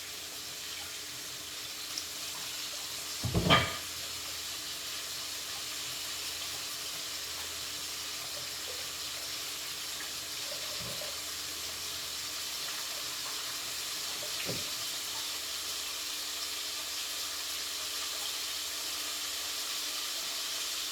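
Water running steadily from a kitchen tap into a sink during hand washing, with one sharp knock about three and a half seconds in and a couple of faint knocks later.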